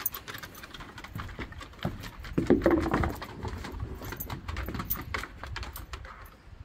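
Basset hound's claws clicking on wooden deck boards as she trots and turns about, a rapid irregular run of clicks, with a louder scuffle about two and a half seconds in.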